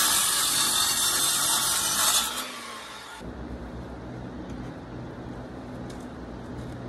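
Power saw cutting into the stucco-clad framed wall, a loud steady cutting noise that stops and winds down about two to three seconds in, leaving a low steady background.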